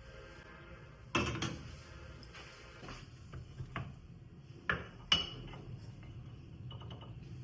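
Kitchen utensils and dishes clinking and knocking in a handful of separate sharp strikes, the loudest about a second in and around five seconds in, over a low steady hum.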